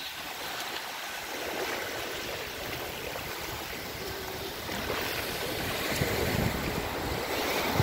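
Small waves washing onto a sandy beach: a steady wash of surf that grows a little louder in the second half.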